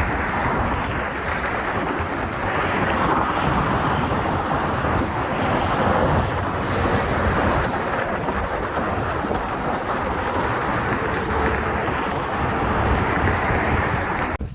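Steady wind noise buffeting the microphone, a loud rushing hiss without any clear tone.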